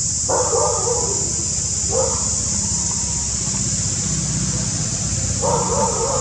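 Macaque calls: three short, wavering cries, the last and longest near the end, over a steady high-pitched drone of insects and a low rumble.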